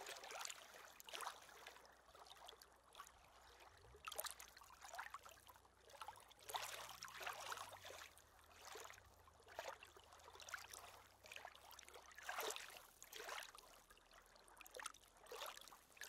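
Small waves lapping faintly against a stony lakeshore, in irregular soft splashes about once or twice a second.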